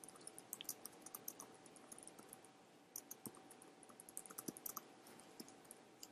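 Faint typing on a computer keyboard: quick runs of light key clicks, with a short pause a little before halfway through.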